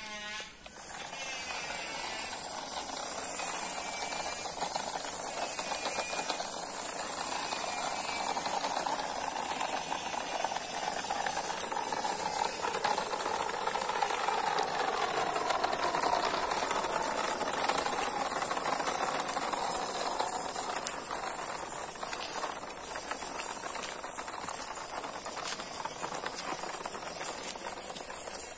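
Radio-controlled model truck's small electric motor and gearbox whirring as it drives, with the tyres rattling over rough concrete and gravel. The whir shifts in pitch with the truck's speed, dropping in pitch between about fourteen and twenty seconds in.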